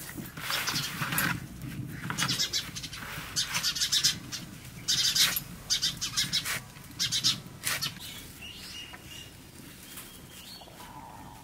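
Knife chopping fresh moringa leaves against a woven bamboo tray in quick runs of short strokes, then the chopped leaves rustling as they are gathered; it goes quieter about eight seconds in.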